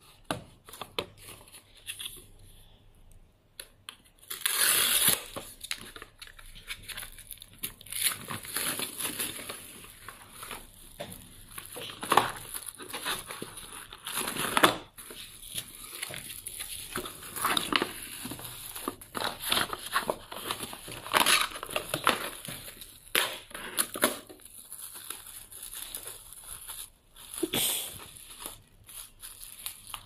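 Plastic cling film being pulled from its box and wrapped around a molded pulp tray of grapes: irregular crinkling and rustling with sharp crackles, starting about four seconds in.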